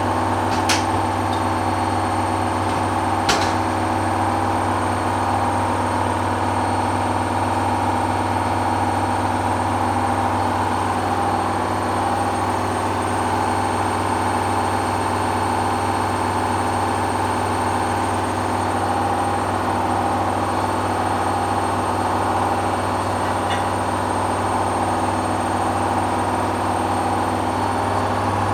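Hoover washing machine's motor running steadily in the final spin stage, with a steady hum and two short clicks in the first few seconds. The load is badly unbalanced, which the uploader says keeps the spin from succeeding.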